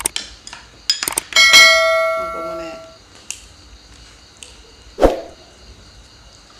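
Tableware clinking: a few light clicks, then about a second and a half in a utensil strikes a dish, which rings out clearly and fades over about a second and a half. A single short knock comes near the end.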